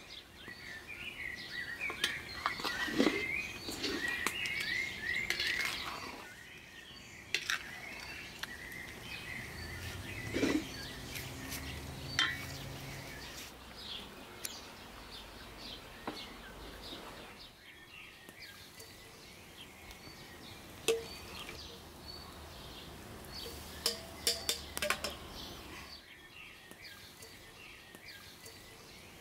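Birds chirping and singing, thickest in the first few seconds, with scattered sharp clicks and clinks.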